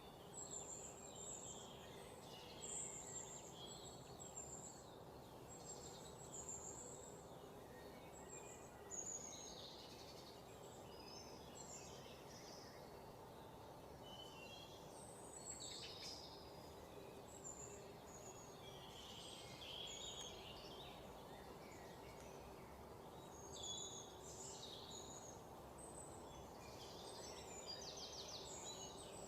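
Faint, scattered bird chirps and calls over a steady low hum, with a rapid trill near the end.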